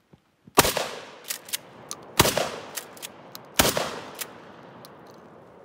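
Three shots from a Mossberg 500 pump-action shotgun, about a second and a half apart, each trailing off in a long echo. Sharper, smaller clicks between the shots are the pump action being worked.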